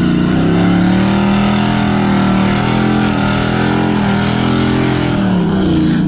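Off-road truck's engine revving hard through a deep mud crossing, its pitch wavering up and down as the tires dig into the mud, then easing off near the end.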